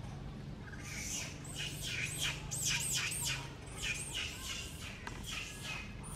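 Baby monkey squealing: a rapid run of short, high-pitched, arching squeals, several a second, starting about a second in.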